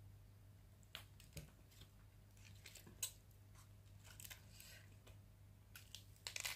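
Faint eating sounds at near silence: a few small clicks and rustles of fingers picking meat off a cooked catfish on aluminium foil, and soft chewing, over a low steady hum. A short cluster of rustles near the end comes from a paper napkin being handled.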